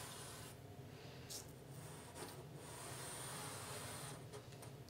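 Charcoal rubbing across paper in a few long strokes, laying down heavy horizontal guide lines.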